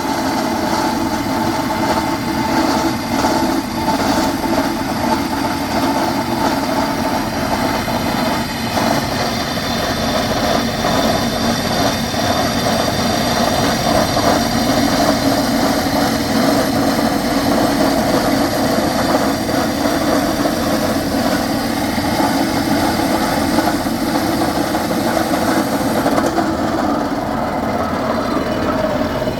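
Hydraulic rock-drilling rig running steadily, a continuous loud mechanical din with a low hum and a higher hum layered over it.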